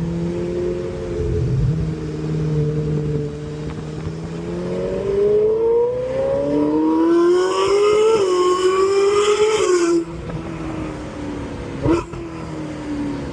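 Ferrari 458 Italia's naturally aspirated 4.5-litre V8 running steadily, then accelerating hard about halfway in, its pitch climbing. There is a quick upshift dip and the pitch climbs again before the sound stops abruptly. A lower engine sound follows, with one short sharp crack near the end.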